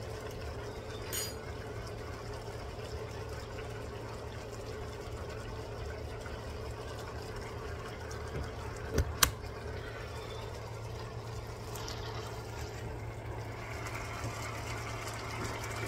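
Squid and vegetable broth simmering in a wok, a steady liquid hiss and bubble, with two sharp clicks about nine seconds in.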